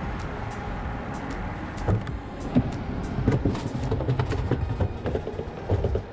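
Handling noise close to the microphone: irregular knocks and clatter from about two seconds in, over a steady low rumble.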